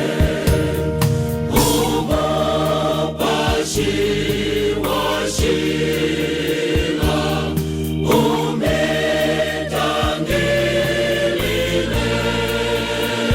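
Choir singing a gospel song over instrumental accompaniment with a steady bass and beat.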